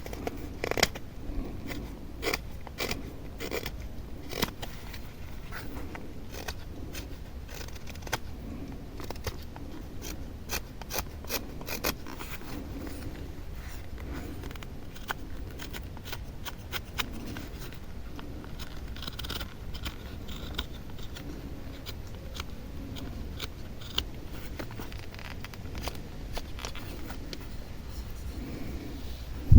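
A knife carving wood in short, irregular scraping strokes, with sharper clicks among them.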